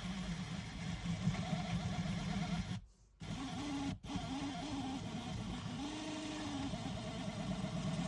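Small electric motor running steadily with a wavering hum while old, brittle traction tyre material is worn off the wheels. The sound cuts out abruptly for a moment about three seconds in, and again briefly at four seconds.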